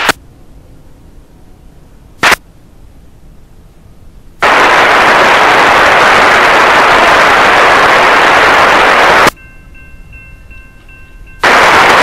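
Railroad scanner radio static: loud bursts of hiss that switch on and off abruptly as the squelch opens on an empty or unreadable transmission. There is a brief burst about two seconds in, a long one of about five seconds from about four seconds in, and another near the end. Between the bursts there is low hiss with faint steady tones.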